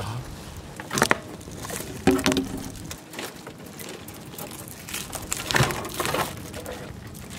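A few sharp knocks and scraping rustles as a live mud crab is pinned against a boat deck and bound with plastic string.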